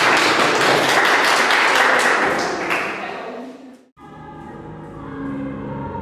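A choir clapping and cheering as a song ends, the claps fading over the next few seconds. Just before four seconds in it cuts to soft instrumental music with long held notes.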